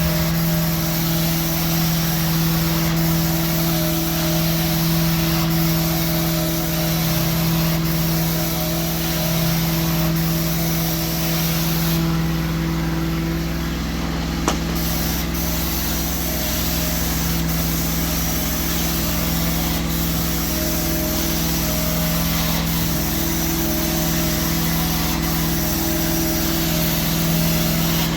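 Cleaning vacuum motor running steadily with a constant hum and a hiss of air, with a single sharp click about halfway through.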